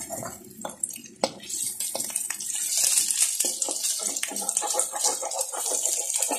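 Chicken wings and sliced onion sizzling in a hot wok, a steady hiss, while a spatula stirs them and clicks and scrapes against the pan, with a sharp knock about a second in.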